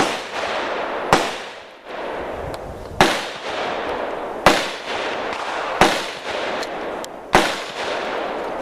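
Gunshots from firearms on an outdoor shooting range: about six sharp reports, spaced irregularly one to two seconds apart, over a steady rushing noise between them.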